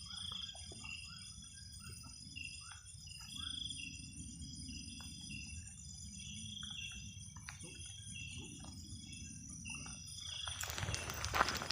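Night insects, crickets among them, chirping in a repeating pattern over a steady high-pitched insect drone. Near the end, footsteps start up.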